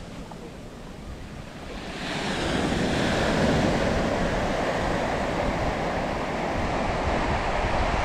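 Sea surf breaking and washing up the beach, swelling louder about two seconds in and then holding steady, with wind buffeting the microphone.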